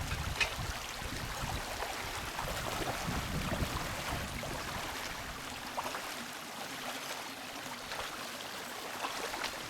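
River water flowing steadily, with a low rumble in the first few seconds that fades.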